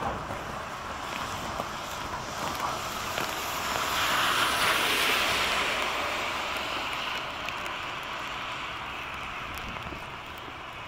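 Gusting storm wind, a rushing noise that swells about four seconds in and slowly eases off.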